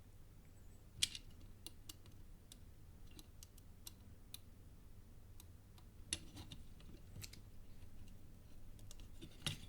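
Faint, scattered small clicks and ticks of resistors being handled and fitted into a circuit board by hand.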